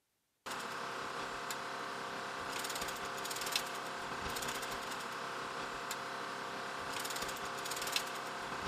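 Steady whine of a helicopter's turbine running, starting suddenly about half a second in, with scattered metallic clicks and short rattles as the door-mounted minigun is handled.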